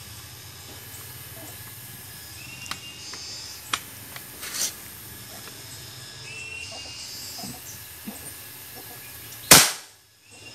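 A PCP air rifle fires one shot about nine and a half seconds in: a single sharp, loud crack. The chronograph clocks the shot at about 1,124 fps. A few lighter clicks and knocks come earlier.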